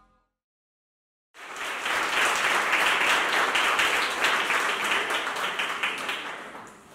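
A small audience applauding, starting suddenly after about a second of silence and dying away near the end.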